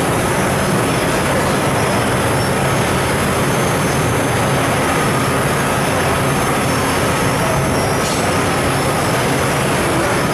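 TRUMPF TruLaser 3030 CNC laser cutting machine running: a steady, even machine noise with a low hum underneath.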